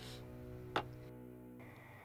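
Soft background music with held notes fading away, and a single sharp clink about three-quarters of a second in as a drinking glass is set down on the table.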